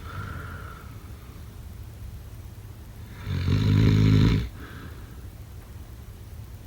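A sleeping person snoring: one loud snore about three seconds in, lasting about a second, between quieter breaths.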